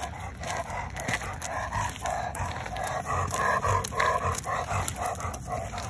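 Elderly Labrador retriever's loud, heavy rasping breathing, about two breaths a second: the noisy, strained airflow of laryngeal paralysis, where the larynx fails to open as the dog breathes in.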